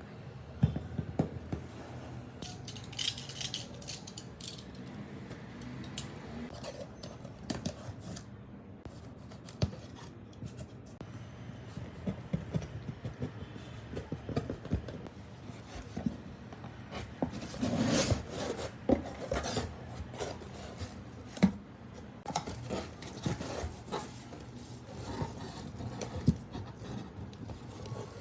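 ASMR unboxing: perfume and body-care bottles and their packaging handled close to the microphone, with scattered taps, clicks and rustles and a busier stretch of rustling and tapping about two-thirds of the way through.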